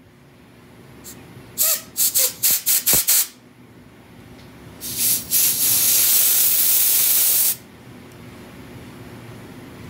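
Compressed-air blow gun blowing through a propane torch valve to clear dirt and brake cleaner out of it: a rapid run of short hissing puffs, then a couple more and a steady blast of about two seconds that cuts off.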